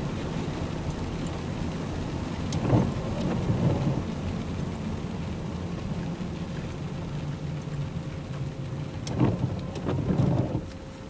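Inside a car's cabin, driving slowly in the rain: a steady low engine and road rumble with rain on the windscreen, broken by three louder rumbling thumps about 3 seconds in and again twice near the end. The rumble falls away sharply just before the end.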